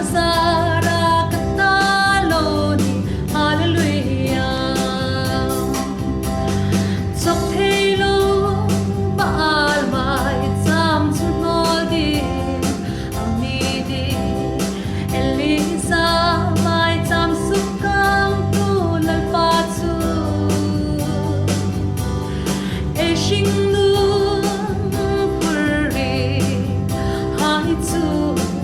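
Worship band performing a gospel song: sung vocals over guitar and bass, with a steady beat.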